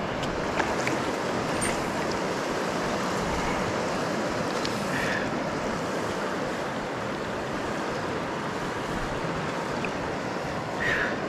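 Steady rush of a shallow river flowing over stones, with a few light clicks over it.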